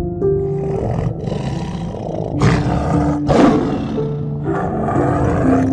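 A big cat roaring, loudest a little past the middle, over background music of steady plucked notes.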